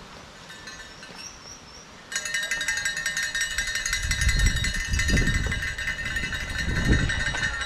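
Cowbells ringing rapidly and continuously, starting abruptly about two seconds in, as spectators shake them along a race course. There are bursts of low rumble underneath.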